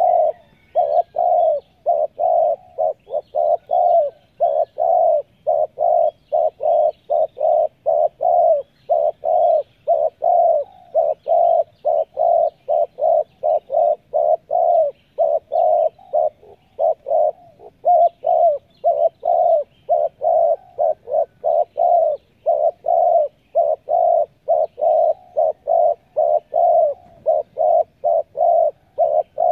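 Spotted dove calling close by in a long, fast run of short coos, about two or three a second, with only a few brief pauses.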